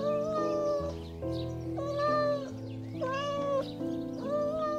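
Domestic cat meowing over and over: four drawn-out meows, each under a second long, about one a second, over background music.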